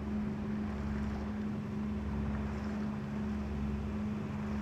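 Steady drone of a 54-foot Cheoy Lee trawler's diesel engine under way, heard from on board, with a constant hum and low rumble and a light wash of wind and water noise over it.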